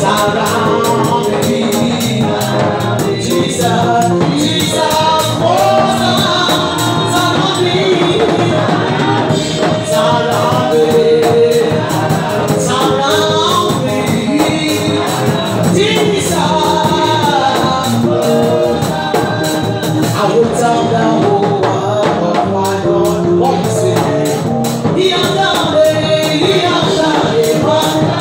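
Gospel praise singing by a group of women into handheld microphones, amplified, over band accompaniment with steady percussion.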